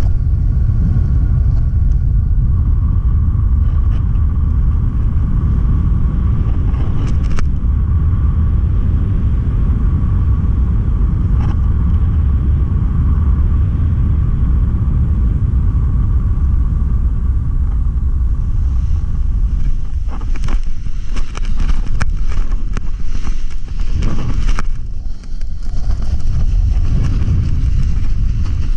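Airflow buffeting the microphone of a paraglider pilot's harness-mounted camera in flight, a steady loud low rumble. From about twenty seconds in it is broken by a few seconds of irregular rustling and knocks.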